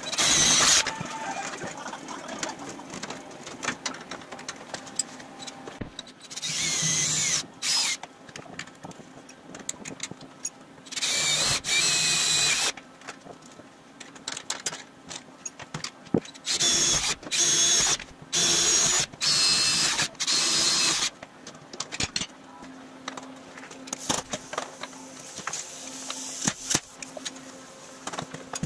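Cordless drill drilling through aluminium sheet into the steel frame in about six short bursts, each with a motor whine, with light clicks and handling noise between them.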